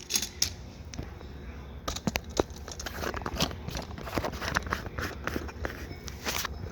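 Handling noise from a camera being moved and set up: irregular clicks, taps and rustling, over a steady low hum.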